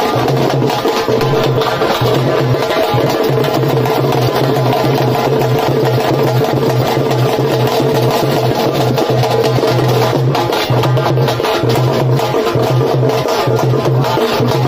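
Live karakattam drumming: large double-headed drums beaten with sticks in a fast, dense, loud rhythm. A steady held tone sounds under the drums, with a lower tone that keeps cutting in and out.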